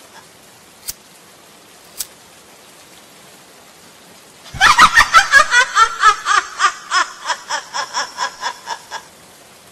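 A woman's sinister laugh, a long string of 'ha' pulses about four a second, loud at first and fading out. Two sharp clicks come over faint hiss in the first two seconds, before the laugh starts.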